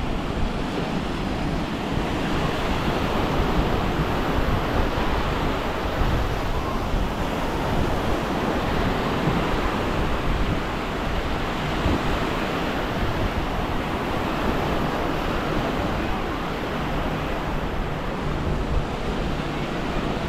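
Small waves washing onto a sandy beach, with wind buffeting the microphone in a steady low rumble.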